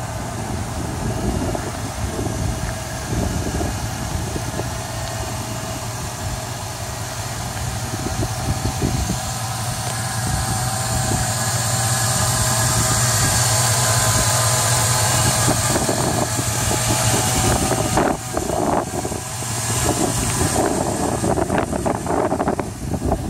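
1999 Chevrolet Silverado 1500's Vortec engine idling steadily, heard up close at the open engine bay, with the hiss of the fan and belts growing louder as the camera nears the engine.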